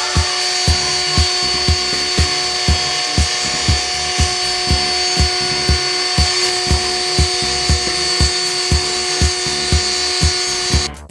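Hobby CNC machine's spindle running steadily as it cuts, with a few steady tones in the noise; it cuts off suddenly near the end. Background music with a steady beat of about two thumps a second plays throughout.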